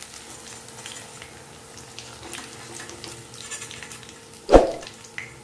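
Chicken pieces sizzling steadily in hot oil in a kadai as they are scooped out with a wire spider strainer, fully fried. One loud knock about four and a half seconds in.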